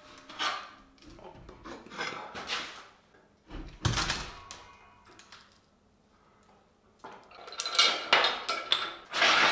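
Metal clanks, clinks and knocks as a pneumatic forging hammer is lowered on an engine hoist onto its steel stand. There is a low thump about four seconds in, and a busier metallic rattle in the last two seconds.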